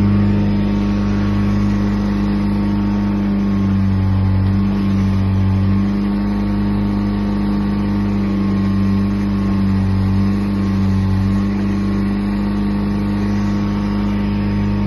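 Ditch Witch FX60 vacuum excavator's engine running steadily, with a few slight swells in level a few seconds apart.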